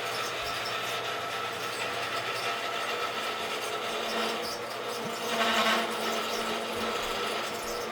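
Rockwell wood lathe running with a steady hum while a turning tool scrapes and cuts the spinning wooden bat blank, the cut growing louder for a moment just past the middle.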